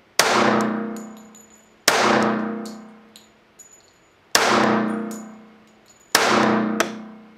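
Four pistol shots from a Springfield Armory Garrison 1911 in .45 ACP, fired about two seconds apart. Each is a sharp crack with a long ringing tail that dies away over a second or more, in an indoor range.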